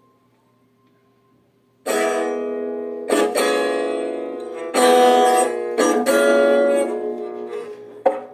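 Guitar chords strummed, starting suddenly about two seconds in, each chord ringing out and fading before the next is struck: the opening of a song.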